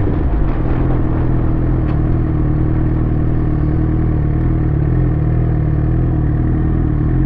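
Suzuki GSX-R sport bike's inline-four engine running at steady revs, with an even, unchanging exhaust note.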